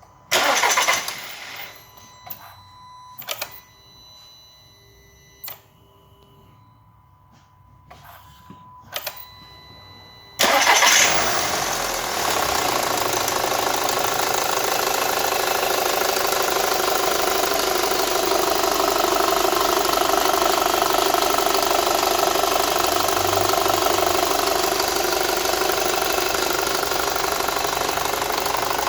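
Volkswagen Passat's 2.0 FSI four-cylinder petrol engine (code BVY): a few clicks and faint tones, then at about ten seconds in the engine starts with a loud burst and settles into a steady idle. It runs with an extraneous noise, the fault this recording is meant to show.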